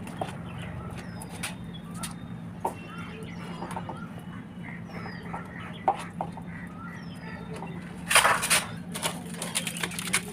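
Chickens clucking and a small bird giving short falling chirps every second or two, over a steady low hum. About eight seconds in, a plastic packet crinkles loudly as it is handled.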